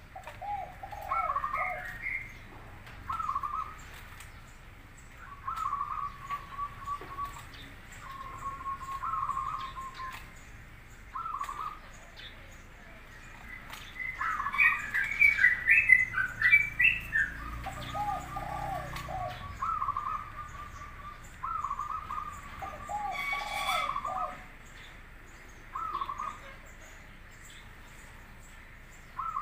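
Zebra dove (perkutut) cooing: short phrases of quick beaded notes, repeated every couple of seconds. About halfway through, a burst of louder, higher chirping rises over it for a few seconds.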